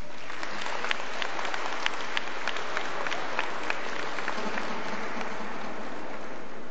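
Applause from a hall audience. It starts all at once with many distinct sharp claps and thins out after about four seconds.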